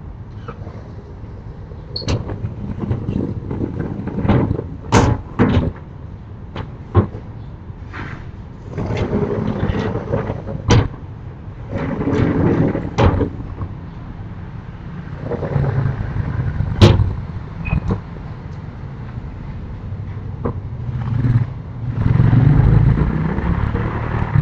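Sliding storm shutters (amado) being run along their tracks, rumbling in stretches of a second or two, with a series of sharp bangs and knocks as the panels hit home, the loudest about two-thirds of the way through.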